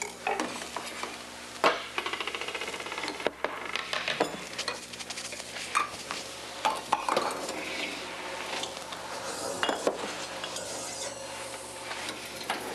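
Clatter and clinks of dishes, utensils and cookware being handled, with a quick run of rattling clicks about two seconds in.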